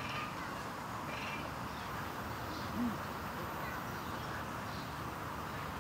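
Steady outdoor background noise with scattered faint bird calls and a brief low call about three seconds in.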